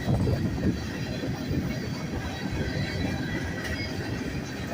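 Freight cars of a departing train rolling past, a steady rumble of steel wheels on the rails with a faint high wheel squeal.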